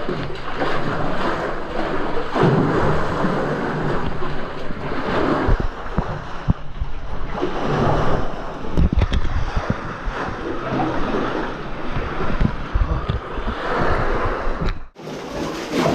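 Seawater sloshing and surging against rock inside a small sea cave, swelling every few seconds, with low thuds close to the microphone. The sound drops out briefly about a second before the end.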